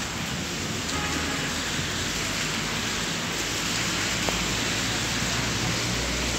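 Steady rain falling on a wet street, a constant even hiss.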